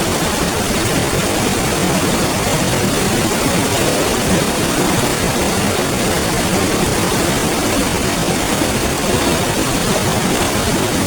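River flowing: a steady, even rush of water with no change in level.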